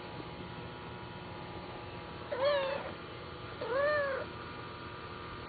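A Bengal cat meowing twice: two short calls that rise and then fall in pitch, about a second apart.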